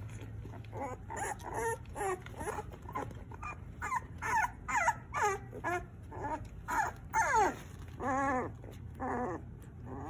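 Young bottle-fed puppies whining and whimpering in a quick string of short high cries, some sliding down in pitch, loudest in the middle.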